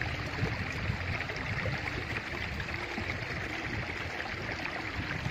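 Steady rushing outdoor noise with a fluctuating low rumble, no distinct events.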